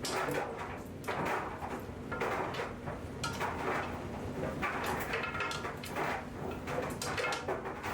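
Washing machine running, with an uneven clatter and knocking as the load turns in the drum and a few short squeaks.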